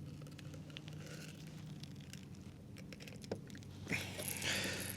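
Small clicks and scraping of pliers working a hook out of a blue catfish, over a low steady hum, with a louder rustling scuffle near the end.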